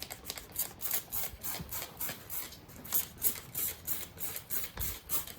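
Hand spray bottle squeezed repeatedly, a quick run of short hissing squirts about three or four a second.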